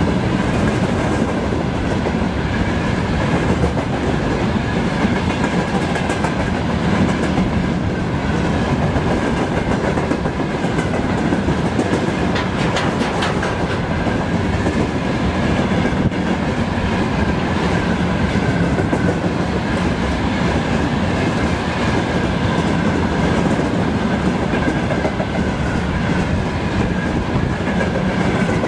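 Freight train of open-top gondola wagons rolling steadily past at close range: continuous wheel rumble and clickety-clack over the rail joints, with a thin high whine from the wheels throughout.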